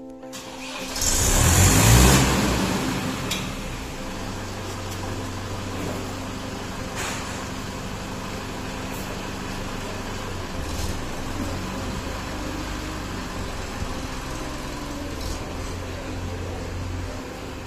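Diesel tractor engine running steadily, with a loud rush of noise about one to three seconds in.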